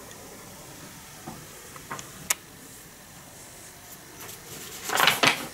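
Faint steady hiss with a few small handling clicks and taps, then a loud burst of rustling near the end, like a sheet of paper being picked up and handled.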